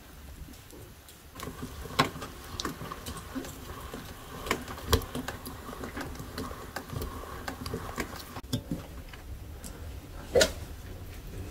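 Hand-cranked metal meat grinder mincing dried fruit: irregular clicks and knocks of the crank and auger, with a faint squeak through the middle and one sharp knock near the end.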